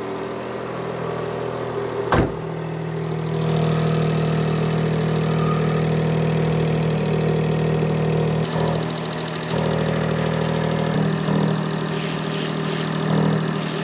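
Smart ForTwo 451's three-cylinder petrol engine idling steadily just after a start, with its exhaust blowing from leaks at the earlier welded repairs to the flexi section. A single sharp knock comes about two seconds in.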